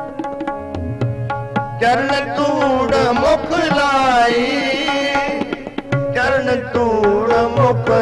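Sikh kirtan: harmonium and tabla playing, with steady reed chords and regular drum strokes. About two seconds in, a male voice enters, singing a long, wavering melismatic line.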